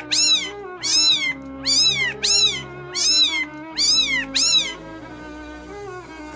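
A kitten meowing over and over: about nine high meows, each rising then falling, coming in quick pairs before they stop near the end. Background music plays under them.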